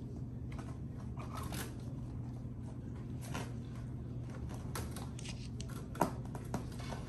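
Maine Coon kittens scuffling about in play: scattered light scratches and taps, with a sharp knock about six seconds in, over a steady low hum.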